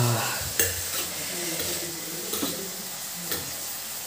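Chopped onion and tomato sizzling in hot oil in a steel kadai on a gas burner, a steady hiss, with a few sharp clicks of a utensil against the pan during stirring.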